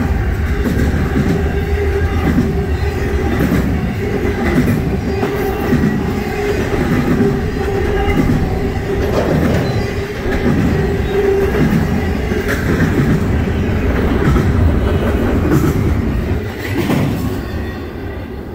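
Double-stack container well cars of a freight train rolling past, wheels clattering over the rail joints about once a second with a steady ringing tone. The sound fades near the end as the train moves away.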